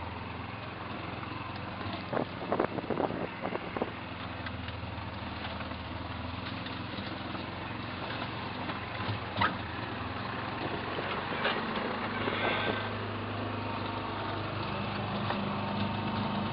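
Golf cart engine running as the cart drives, with a quick run of sharp cracks and knocks about two seconds in. The engine grows a little louder near the end.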